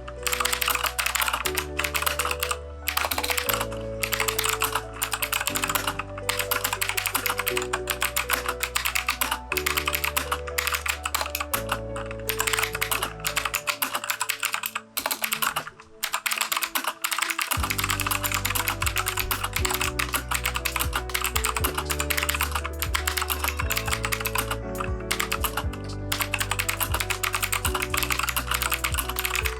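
Continuous fast typing on a Keychron K2 mechanical keyboard with unlubed Gateron switches: a dense run of key clacks. Background music with a bass line plays under it and its low end drops out for a few seconds midway.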